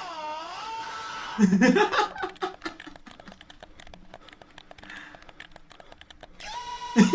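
A wavering, warbling tune that breaks off about a second in, then a sudden loud burst of laughter followed by crackly crowd noise; a steady high tone starts near the end.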